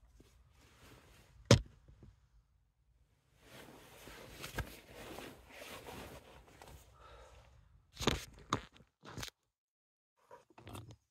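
Fabric rustling from someone shifting around inside a bivvy bag and sleeping bag. There is a sharp click about a second and a half in, and a few more clicks and knocks near the end.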